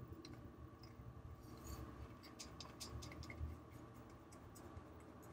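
Faint clicks and scrapes of a wooden craft stick working around the inside of a plastic cup of clear epoxy resin, scraping it out. The clicks are scattered and come mostly in the middle.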